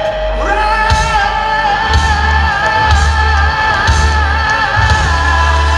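Live rock band playing: the singer holds one long high note with vibrato over electric guitars, bass and drums.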